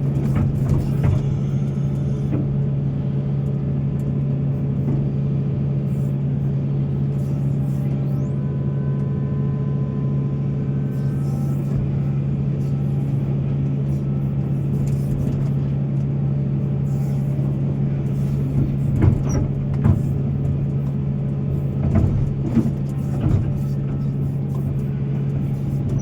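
Large excavator's diesel engine running with a steady low drone, with a few sharp knocks and clatters about three-quarters of the way through.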